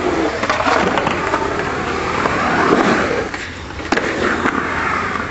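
Skateboard wheels rolling and carving across a concrete bowl, a continuous rushing roar that swells and fades as the rider speeds up and slows, with one sharp clack about four seconds in.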